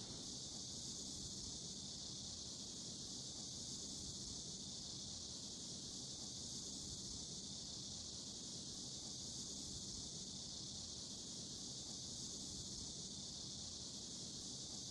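Faint, steady, high-pitched hiss of ambience, with no distinct events.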